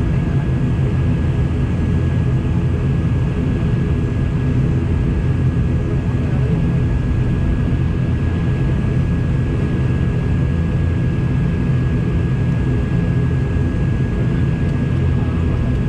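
Air Serbia airliner's engines running with a steady, unchanging drone and a thin constant whine above it.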